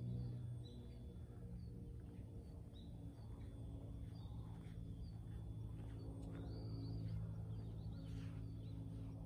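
Soft background music of low held tones, with small birds chirping now and then.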